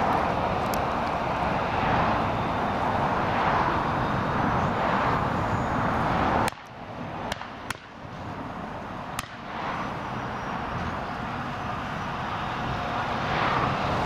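Claas Jaguar 950 forage harvester chopping maize and blowing it into a trailer, with the tractor running alongside: a steady, dense machine noise. It drops off suddenly about six and a half seconds in, a few sharp clicks come in the quieter stretch, and it builds back up over the next few seconds.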